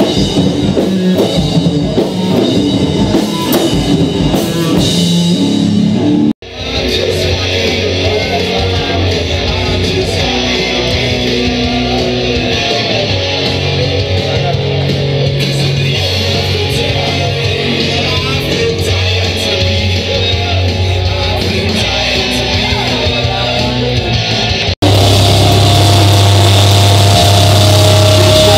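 Live rock band playing loud, with electric guitar and drum kit. It breaks off suddenly twice, about six seconds in and again near the end, where the playing gives way to a steady held drone.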